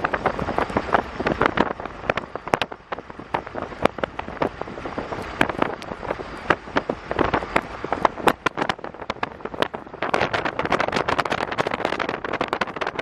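Storm precipitation striking a vehicle's body and glass in many sharp, irregular taps, several a second, thickening into a denser steady patter about ten seconds in.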